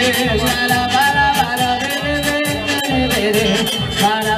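Live popular dance music from a small band, with a steady beat and a repeating bass line under a wavering melody line, perhaps a voice.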